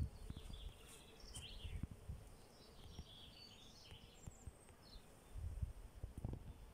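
Small birds chirping and twittering in short, scattered phrases during the first five seconds, faint, over low irregular bumps and rumble.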